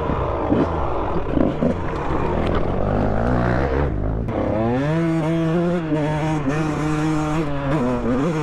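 Dirt bike engine ridden hard on an off-road trail, rough and uneven for the first few seconds. About halfway through the revs climb and hold high and steady in second gear, then drop off near the end.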